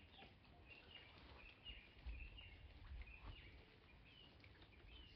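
Faint chirping of small birds: many short, high calls in quick succession, over a low rumble that swells briefly about two to three seconds in.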